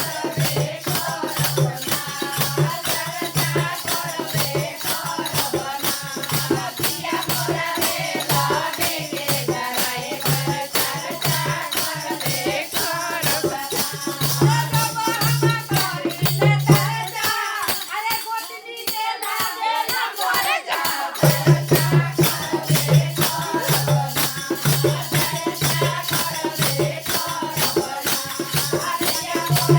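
A bhajan, a devotional folk song, sung by voices to a fast, steady rattle or shaker rhythm, over a pulsing low beat. The low beat drops out for about four seconds past the middle.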